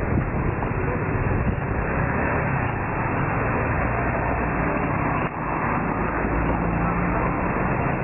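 Steady vehicle rumble with a brief dip about five seconds in.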